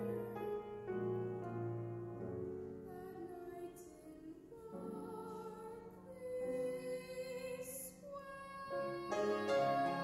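A woman's solo singing voice with grand piano accompaniment, in slow held notes with vibrato.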